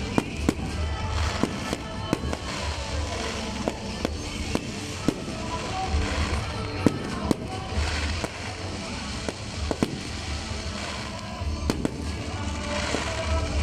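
Fireworks display: aerial shells launching and bursting in a rapid, irregular string of bangs, with music playing in the background.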